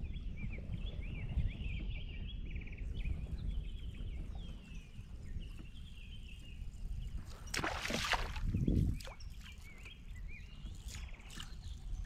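Birds chirping and singing over a steady low rumble. About seven and a half seconds in comes a brief rushing noise, followed by a low thump.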